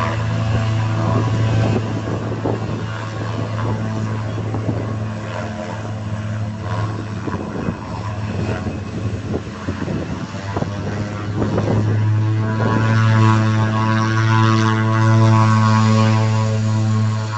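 Thrush agricultural plane's PT6A turboprop engine running on the ground at taxi power, a steady low propeller drone with a stack of higher tones above it. It grows louder about twelve seconds in, and wind buffets the microphone in the middle stretch.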